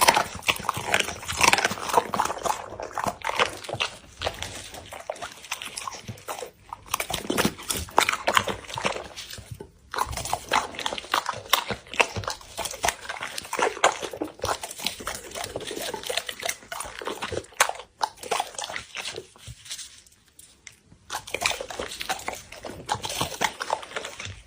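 Pit bull eating, with irregular crunching and chewing noises that pause briefly a few times.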